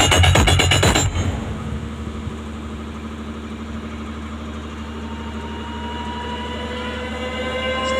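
Electronic dance music with a heavy beat cuts off about a second in, leaving a steady low drone. From about six seconds in, several tones slowly rise together like a siren winding up.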